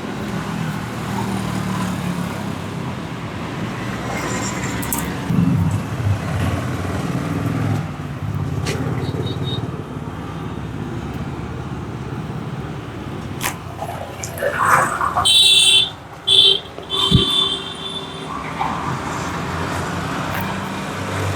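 Street traffic noise running steadily. About three-quarters of the way through, two short, loud high-pitched beeps sound in quick succession.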